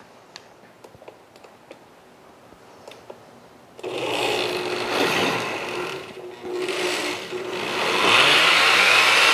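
Countertop blender blending a liquid sauce base of milk, broth, cream cheese and cornstarch. It starts about four seconds in, after a few soft clicks of its control panel, and runs loudly with a steady hum, dipping once before swelling again near the end.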